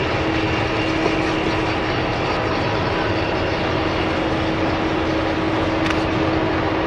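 Giant mining haul truck tipping its raised bed: the rush of a load of dark rock sliding out onto the heap, over a steady engine hum.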